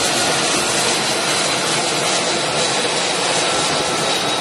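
F-35C Lightning II's F135 turbofan running close by as the jet taxis: steady loud jet noise with a thin high whine over it.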